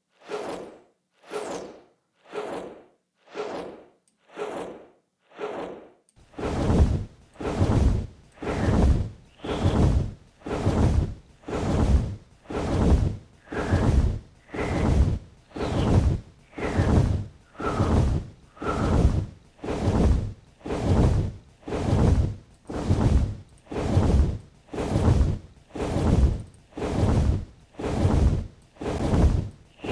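Designed dragon wing-flap sound effect played on a loop: a swelling whoosh of air about once a second. For the first six seconds the flaps are thin, with little bass. Then a deep low layer comes in, and each flap turns into a heavier, louder beat.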